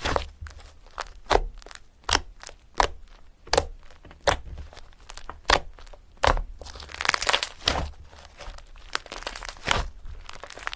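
Pen writing on paper: short, irregular scratching strokes, with a few longer strokes about seven seconds in.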